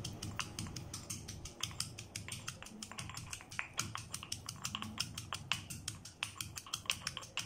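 Stone pestle pounding garlic cloves in a stone mortar: quick, light knocks, several a second, as the cloves are crushed.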